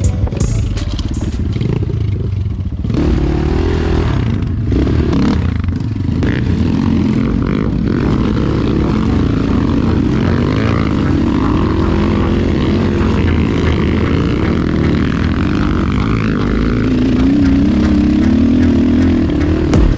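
250 cc enduro motorcycle engine running close-up under the rider, its note wavering up and down with the throttle and climbing near the end.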